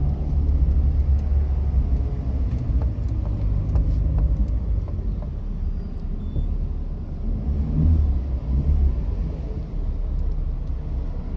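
Small Peugeot car driving, heard from inside the cabin: a steady low engine and road rumble.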